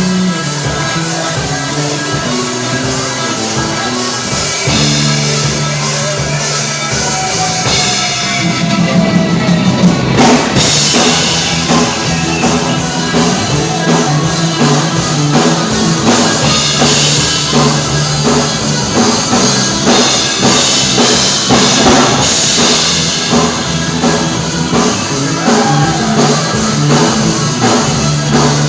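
Rock band playing, with drum kit, guitar and bass. After a thinner passage there is a loud hit about ten seconds in, and the drums and cymbals then play on at full strength.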